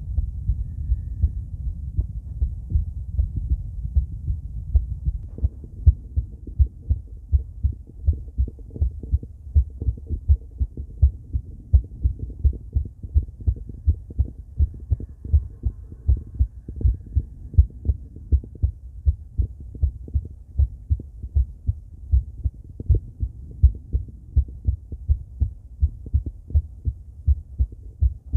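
A woman's heartbeat heard through a stethoscope and picked up by a microphone: a steady, regular run of low, dull beats.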